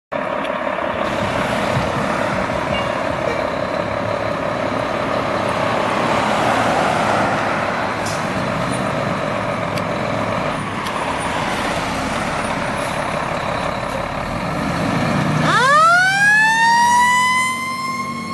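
A 1990s Spartan fire engine's engine running as the truck pulls out. About fifteen seconds in, its Federal Q mechanical siren starts up, winding up in a rising scream that levels off high near the end.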